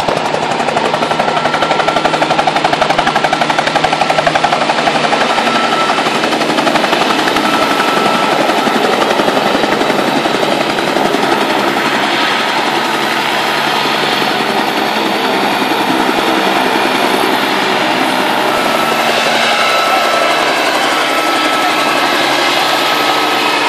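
Bell 47 piston-engined helicopter running, with a fast, even beat of main-rotor chop over the engine, as it lifts off and flies low past.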